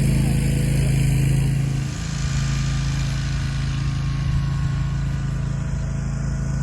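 A motor running with a steady low hum, which drops to a lower, rougher level about two seconds in.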